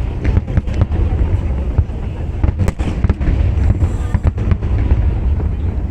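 Fireworks display: a constant low booming with many sharp cracks in quick, uneven succession.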